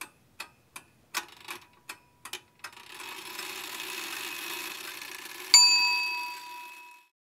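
Clock-ticking sound effect at about three ticks a second, then a few uneven ticks and a hiss that swells, topped about five and a half seconds in by a single bell-like ding that rings out and fades within about a second and a half.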